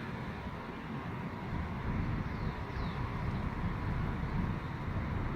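Steady low outdoor rumble, with a couple of faint short high chirps about halfway through.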